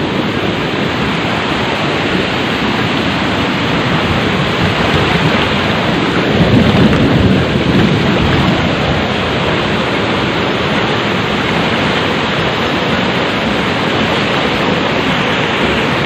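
Steady rushing of waterfall water pouring fast over rock close at hand, swelling a little about halfway through.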